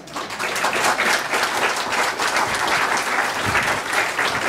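Congregation applauding, the clapping building over the first second and then holding steady.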